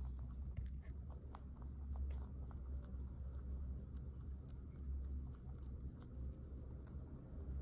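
A rabbit chewing a dried pumpkin leaf, with many quick, irregular crisp crunches over a low steady hum.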